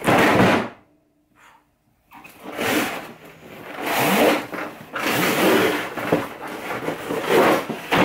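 A large cardboard box being opened: cardboard scraping, sliding and rustling as the lid is worked off the inner tray, in uneven swells. It comes after a short loud noise at the very start and a pause of about a second and a half.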